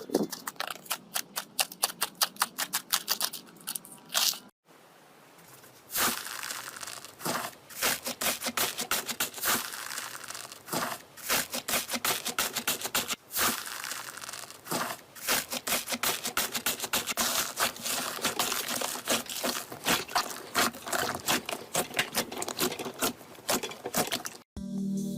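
Slime being squeezed and stretched by hand, giving rapid, irregular crackling and popping clicks as trapped air bubbles burst. The crackling breaks off briefly about four and a half seconds in, then resumes.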